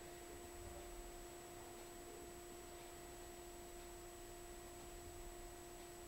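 Near silence with a faint steady electrical hum: a low held tone with a second tone an octave above, over a light hiss.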